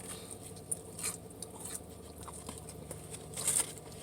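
A person chewing Popeyes fried chicken: scattered wet clicks and crisp crunches, with a louder crunch about three and a half seconds in.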